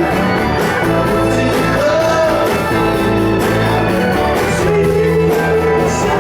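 Live band music: a male singer holding long, bending notes over guitar, bass and drums.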